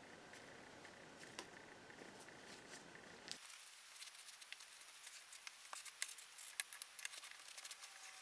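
Faint light clicks, taps and rustling as cast-metal hand-drill parts are handled with slip-joint pliers and wiped with a rag, the clicks coming more often in the second half.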